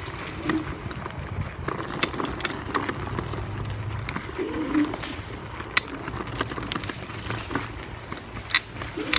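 Electric scooter jolting over a rough dirt trail, its frame rattling and knocking over a steady low hum. A bird gives a low cooing call about halfway through and again at the very end.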